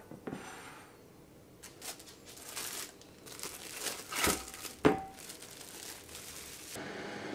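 Plastic cling wrap crinkling as it is peeled off a block of cream cheese, then a thud as the block drops into a glass mixing bowl, followed by a short ringing glass clink. A steady hiss starts near the end.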